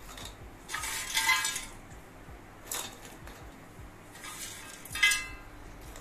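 Crisp fried kurkure sticks rattling and clattering as a hand moves them about in a bowl, with short clinks. The loudest bursts come about a second in and about five seconds in.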